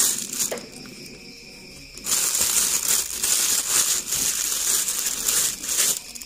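Clear plastic cellophane wrapping crinkling as hands pull it open around a new carburetor: a short crinkle at the start, a quieter pause, then steady, uneven crinkling from about two seconds in.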